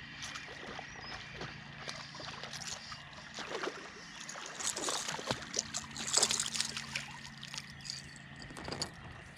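Water splashing with scattered knocks and rattles at the side of a fishing boat, loudest around the middle, over a steady hum.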